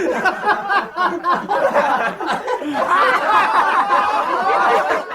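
People laughing. The laughter thickens about three seconds in into many overlapping voices.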